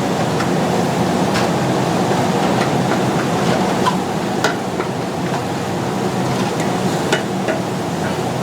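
Steady rumbling noise of a busy food stall, with irregular sharp metallic clicks and knocks of utensils throughout.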